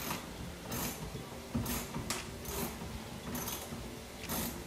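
Small hand ratchet with a T20 bit backing out a fastener in the wheel-well liner: a string of faint, irregular clicks and rasps, roughly one every half second.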